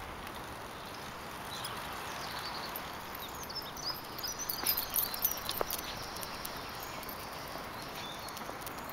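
Footsteps and small paw steps on a park path over a steady outdoor hiss, with birds chirping faintly; the steps and clicks are busiest about four to six seconds in.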